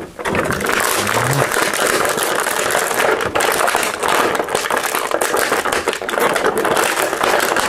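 Stiff plastic action-figure packaging crackling and clicking steadily as the figure is worked out of its plastic tray.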